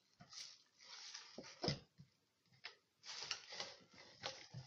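Hands pushing a rolled pancetta, wrapped in a dry casing sheet, into sausage netting over a plastic tube. It makes faint, irregular rustling and scraping with a few soft knocks.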